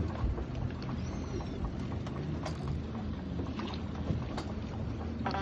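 Fishing boat's engine running steadily with a low hum, over a wash of wind and sea. A few faint clicks come through, and a brief louder noise comes near the end.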